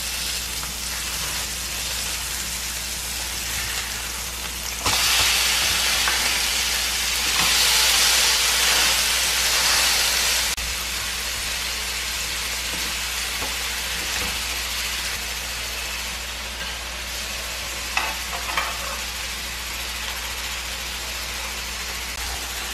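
Pork chops sizzling in a dry nonstick frying pan, frying in the fat they give off with no oil added. The sizzle is steady, louder for a stretch of about five seconds near the start, with a few light clicks later on.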